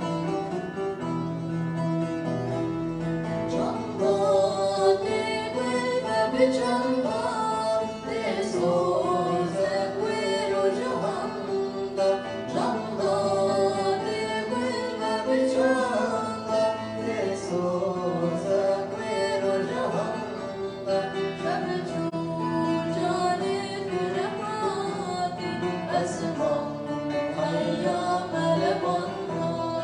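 Bağlama (long-necked saz) and acoustic guitar played together, with a male voice singing over them.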